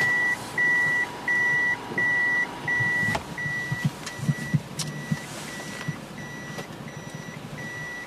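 Toyota van's reverse warning beeper sounding in the cabin: a single high beep repeating steadily, about three beeps every two seconds, louder at first and fainter after about three seconds. A few soft knocks about halfway through.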